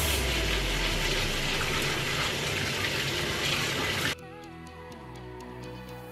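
Kitchen faucet running into a plastic bowl of rice as it is rinsed by hand. The water cuts off suddenly about four seconds in, leaving background music.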